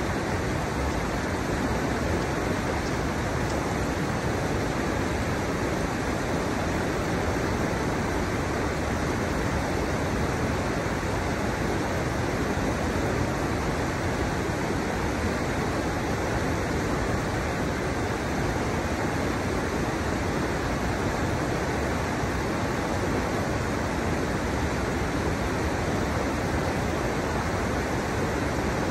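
Shallow river water rushing over the drops of a stepped riverbed, a steady, even rush of water.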